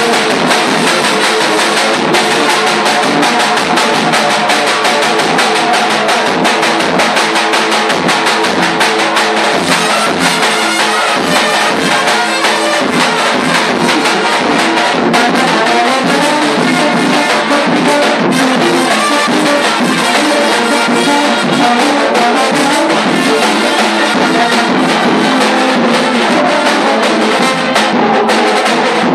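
Balkan brass band playing live and loud: several brass horns carry the tune over a sousaphone bass line and a large bass drum struck with a stick in a steady beat.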